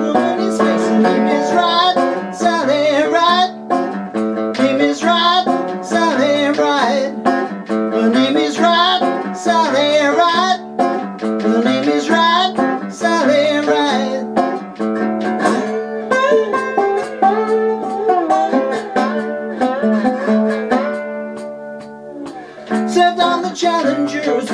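Metal-bodied single-cone resonator guitar being played, chords ringing out in changing patterns; the playing dies down about twenty seconds in, then picks up again near the end.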